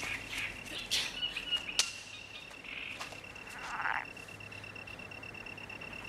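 Animal calls, as in a film's outdoor ambience: a steady, high-pitched trill under scattered sharp clicks and a few short rustles.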